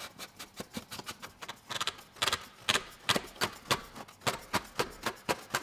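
Light irregular clicking and ticking, louder and more frequent from about two seconds in, as the plastic oil filter housing cap is screwed back on by hand.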